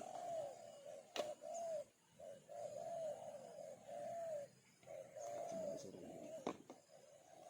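Doves cooing in a near-continuous run of short, arching coos, with two sharp clicks, one about a second in and one near the end.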